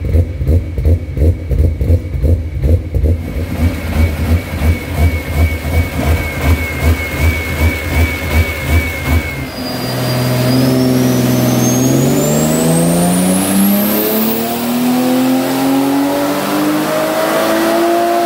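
Turbocharged 2JZ straight-six in a Toyota Supra idling with a heavy, lumpy pulse, about two to three beats a second. About nine seconds in it switches to a run under load, the revs climbing steadily with a high whine rising alongside.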